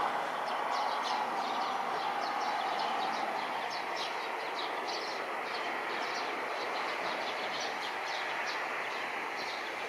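Distant jet roar from an Embraer regional jet's turbofans climbing out after takeoff, steady and easing off slightly as the aircraft pulls away. Short, high chirps repeat rapidly over it throughout.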